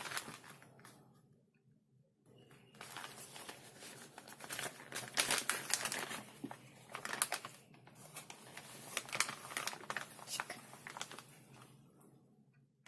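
Food packaging crinkling and crackling as it is handled close to the microphone, starting about two seconds in and dying away near the end.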